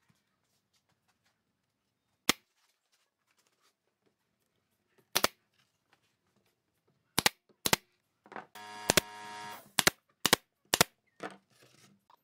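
Pneumatic brad nailer firing into pine, about nine sharp cracking shots, sparse at first and then coming in quicker succession, with a buzzing hum lasting about a second and a half among the later shots.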